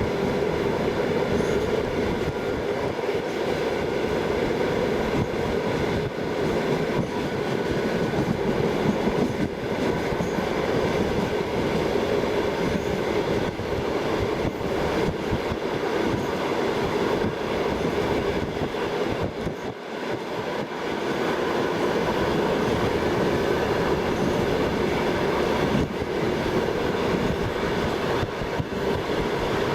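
Passenger train running along the track, heard from inside the carriage at the window: a steady rumble and rattle of wheels on rails. The sound dips briefly about two-thirds of the way through.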